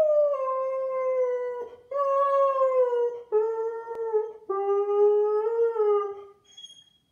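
Blonde Bouvier dog howling: about four long, drawn-out howls in a row, each sagging slightly in pitch, a Chewbacca-like moan. A short high whine comes near the end.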